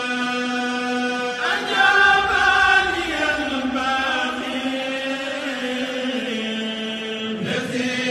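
A single voice chanting religious verses in long held notes, sliding to a new pitch about a second and a half in and again near the end.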